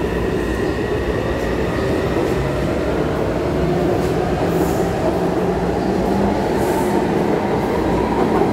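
Taipei Metro C301 steel-wheel electric train pulling out of the station. Its traction motors whine, rising steadily in pitch as the train gathers speed, over the rumble of the wheels on the rails.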